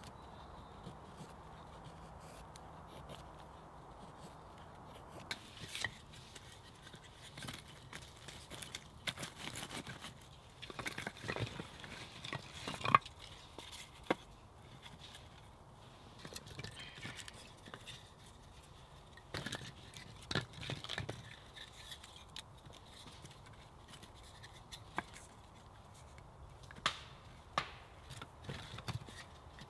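Split firewood and a small log knocking and scraping against each other and the fire-ring stones as they are stacked into a log cabin fire lay. The wooden clacks and rustles come in scattered clusters, beginning about five seconds in and returning near the end.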